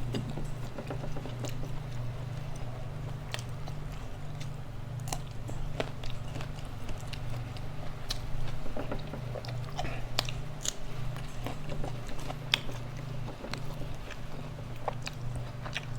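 A person chewing and biting food close to the microphone, with scattered crisp crunches and mouth clicks, over a steady low hum.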